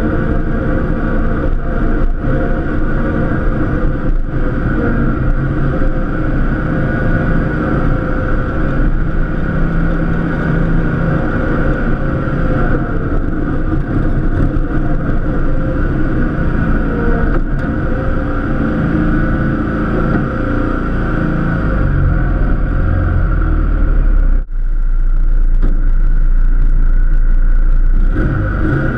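Cub Cadet LTX1050 KW lawn tractor engine running steadily under load while plowing snow. About three quarters of the way in, the higher part of the sound drops away for a few seconds and a deep rumble takes over.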